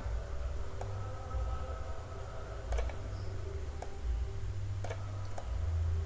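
A computer mouse clicking faintly, about five separate clicks spread over a few seconds, over a steady low electrical hum.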